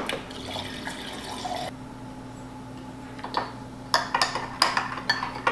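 Refrigerator door water dispenser pouring into a glass, stopping after about a second and a half. A few seconds later a metal spoon stirs in the glass, clinking against its sides in quick taps.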